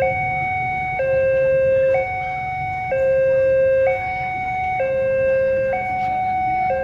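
Two-tone electronic warning alarm, alternating between a low note and a higher note about once a second without a break.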